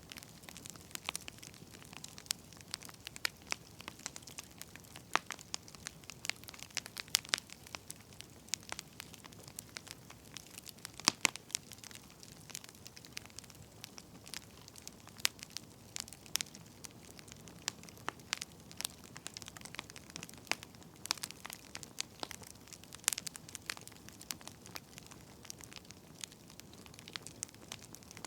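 Wood fire crackling: irregular sharp pops and snaps from burning firewood over a faint steady hiss.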